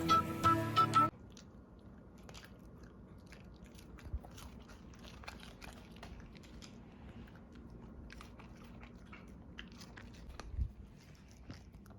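Background music cuts off about a second in. A dog then chews and crunches a treat in a long run of small irregular crunches, with one soft thump near the end.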